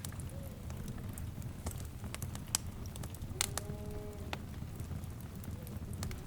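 Wood fire burning, with a steady low rumble and scattered sharp crackles and pops. Near the middle, a faint drawn-out animal call lasting about a second sounds under the fire.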